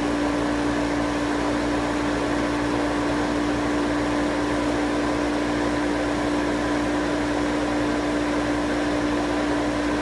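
Yellow Jacket R70a oil-less refrigerant recovery machine running steadily in purge mode, its compressor and condenser fan giving a steady hum. It is pumping the remaining refrigerant out of its hoses down to zero.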